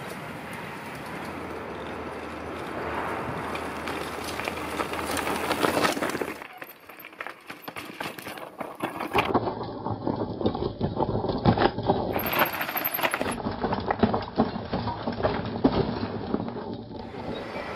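Mountain bikes rolling down a loose gravel trail: tyres crunching over stones, with the bikes' chains and frames rattling. It grows louder up to about six seconds in, and from about nine seconds on there is a stretch of sharp metallic clicks and rattles as a rider passes close.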